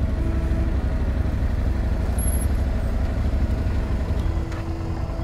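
Yamaha Ténéré 700's parallel-twin engine running at low revs while the bike rolls slowly forward, a steady low rumble that eases off about four and a half seconds in.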